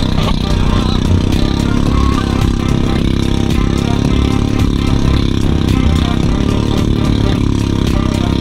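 Loud, steady rush of wind buffeting the camera's microphone and water hissing under an inflatable towable tube being pulled at speed over the sea.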